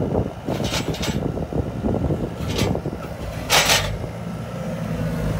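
Diesel engine of a Cat skid steer running steadily as the machine drives up, with several short bursts of hiss, the loudest about three and a half seconds in.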